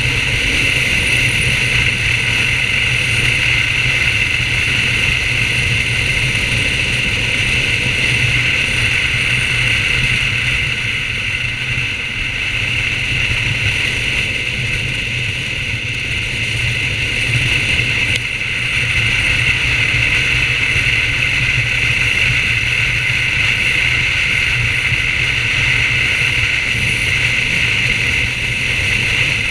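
BMW R1200GS motorcycle cruising at steady road speed: its flat-twin engine runs under a constant rush of wind on the microphone.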